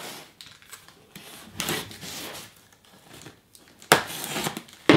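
A small blade slicing the packing tape on a cardboard box, with scraping and rustling of tape and cardboard, and two sharp knocks near the end.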